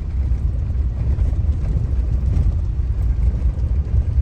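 Steady low rumble of a vehicle driving on an unpaved dirt road: engine and tyre noise.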